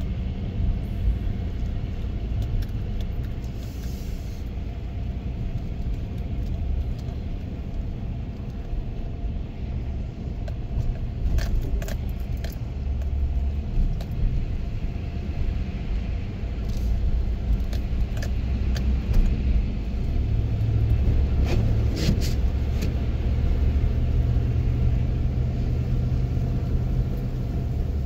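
Car interior while driving slowly on a snow-covered road: a steady low rumble of engine and tyres, stronger in the last third, with a few short clicks.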